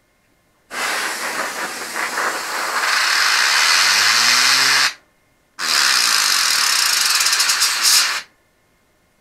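Can of compressed-air duster spraying in two long blasts at a computer case's front fans. A low tone rises under the end of the first blast, and the second flutters just before it stops.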